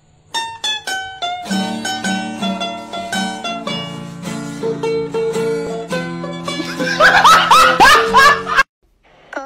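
Background music: a plucked-string melody over a steady accompaniment, with a run of short rising slides near the end before it cuts off suddenly.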